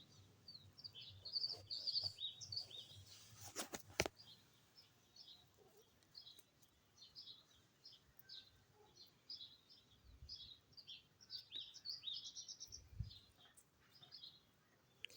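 Small birds chirping faintly in the background, a steady scatter of short, high chirps. There are a couple of sharp clicks about four seconds in.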